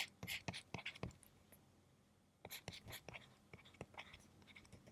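Penstar eNote pen nib scratching across the paper-like e-ink screen in handwriting, picked up close by a microphone: quick short strokes in two bursts with a pause of about a second between.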